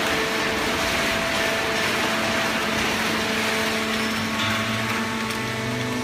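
Automatic horizontal hydraulic cardboard baler and its chain feed conveyor running: a steady mechanical noise with constant motor and pump hums. A deeper hum joins about four seconds in.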